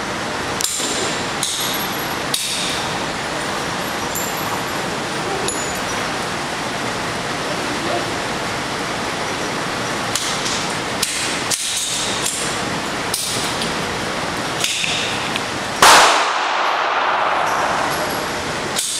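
Gunshots echoing in an indoor shooting range: scattered sharp, clanging cracks from other lanes over a steady background noise, and near the end one much louder close shot from a 9mm pistol.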